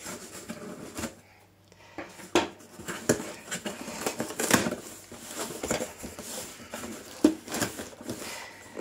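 A sealed cardboard shipping box being worked open: irregular scraping, clicks and knocks as the tape is cut and the box handled, with a sharp click about seven seconds in.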